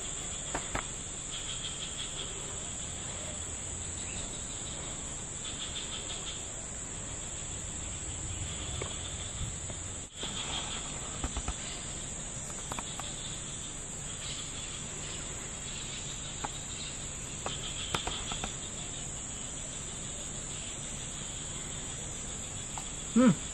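Steady, high-pitched drone of insects calling in a tropical forest, with some pulsing higher chirps and a few faint clicks.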